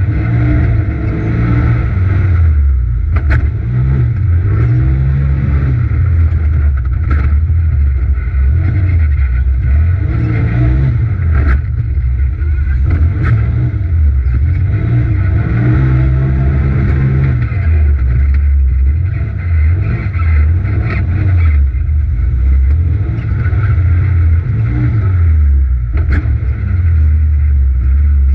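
Polaris RZR XP Turbo side-by-side's turbocharged twin-cylinder engine, heard from inside the cab while driven hard round a dirt track. The engine note rises and falls over and over as the throttle is opened and lifted, with a few sharp knocks scattered through.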